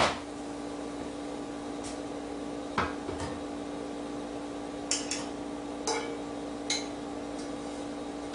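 A handful of scattered clinks and knocks of a metal utensil against a cooking pot and dishes, as boiled chicken breast is lifted out, over a steady low hum.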